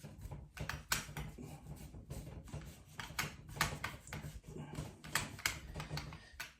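Irregular light clicks and scrapes of a rag wiping oil over a Marlin .30-30 lever-action rifle, over a low steady hum.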